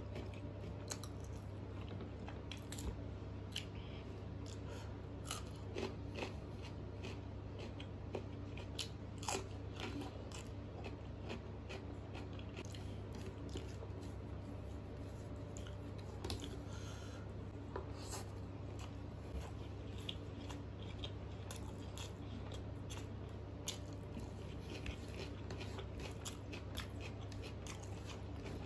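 Close-miked chewing and mouth sounds of a person eating rice with peas and paneer curry by hand, with many scattered short wet clicks and smacks over a steady low hum.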